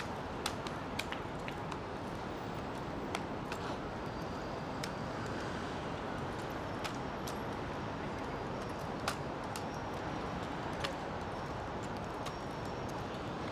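Scattered sharp clicks and slaps from an honor guard's rifle drill, hands striking and catching the rifles at irregular moments, over the steady murmur of an outdoor crowd.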